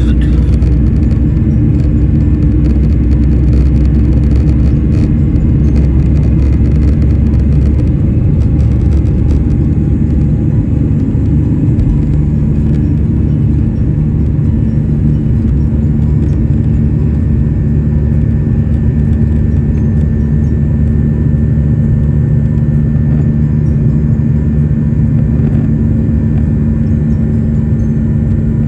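Jet airliner engines and airflow heard from inside the passenger cabin: a loud, steady low rumble with a steady hum running through it.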